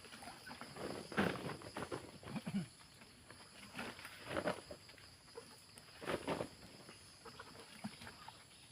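Irregular rustling, scraping and knocking from someone handling things and moving among rubber trees while collecting scrap rubber, with a few louder bursts spaced a second or two apart. A steady high-pitched drone runs underneath.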